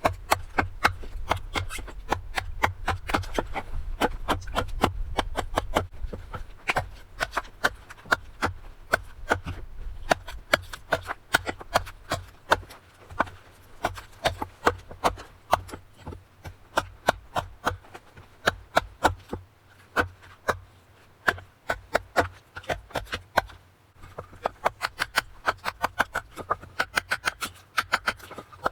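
Knife carving a wooden kuksa cup: a steady run of short, sharp cutting and scraping strokes, about two to three a second.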